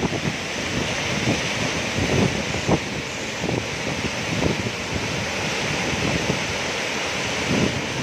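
Waterfall rushing steadily, with irregular low buffeting thumps on the microphone.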